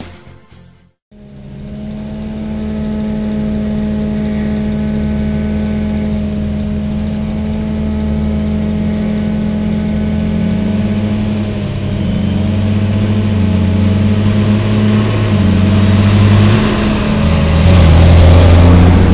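Farm tractor's diesel engine running steadily as it hauls a three-axle dumper trailer loaded with chopped maize along a road, growing louder as it approaches. The engine note shifts a little about midway, and near the end it passes close by with a rush of tyre noise.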